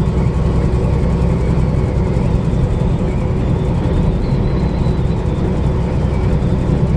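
Steady low rumble of an 18-wheeler semi truck on the move, heard inside the cab: engine drone and road noise.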